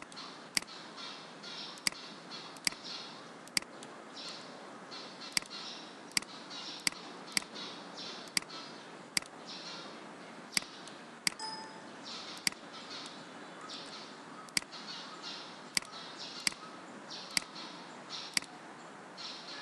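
Computer mouse clicking: single sharp clicks at irregular intervals of about a second, over a faint steady hiss.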